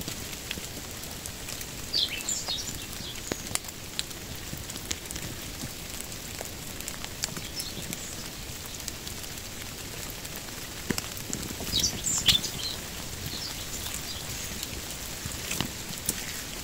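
Steady rain falling on foliage, with scattered drops ticking. A small bird chirps in short, high calls about two seconds in and again around twelve seconds.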